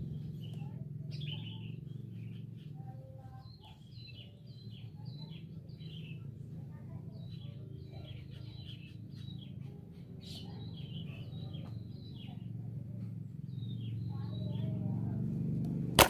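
Small birds chirping, many short high calls in quick succession, over a steady low hum.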